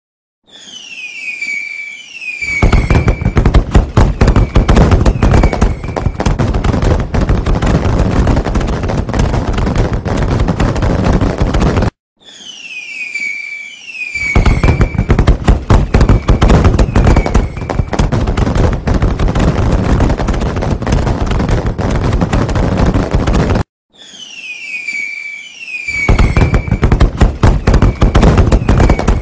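Fireworks: two falling whistles, then a long, rapid barrage of bangs and crackles that cuts off suddenly. The same roughly twelve-second sequence repeats three times, as a looped sound effect.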